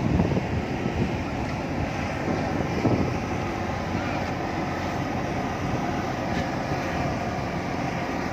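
Steady rumble of engines running, with a constant low mechanical noise and no distinct events.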